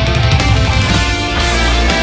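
Background music: an epic rock track with distorted guitars and drums.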